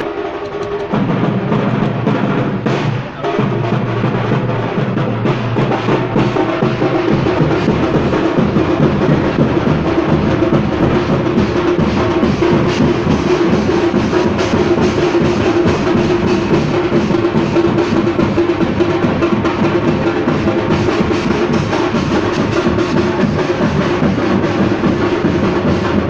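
Fast, continuous drumming, dense rapid strokes like a drum roll, with a steady held note underneath that grows stronger about halfway through.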